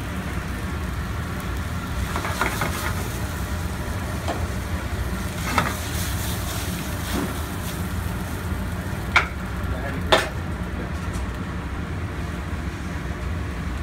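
Linguine sizzling and frying in a hot sauté pan over a gas burner as it is tossed and stirred, with three sharp metallic clanks of the pan partway through. A steady low hum runs underneath.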